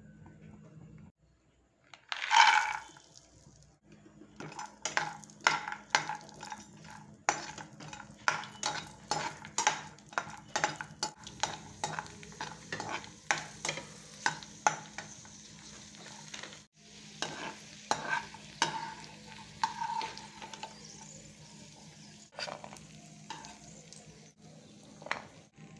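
Cashews and raisins hitting hot fat in a nonstick pan with a loud sizzle, then being stirred and fried with a spatula: repeated scrapes and taps against the pan, about one or two a second, over a low frying sizzle.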